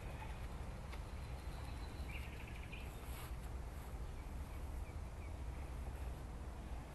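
Outdoor ambience: a steady low rumble with birds chirping over it, including a quick rapid trill about two seconds in.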